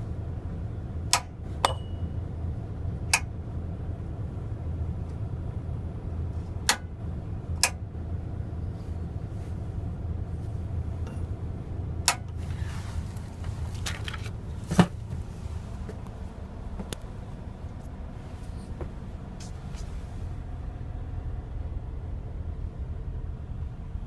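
Bus diesel engine idling with a steady low hum, heard from inside the cabin. About eight sharp clicks and taps are scattered over the first fifteen seconds, from fittings and switches being handled.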